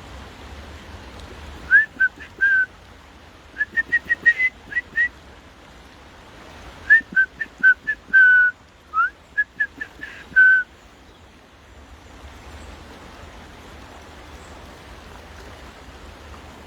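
A person whistling to call a dog back: short, quick whistled notes with little upward flicks, in a few runs over about nine seconds, the longest near the middle. A steady hiss of river and rain runs underneath.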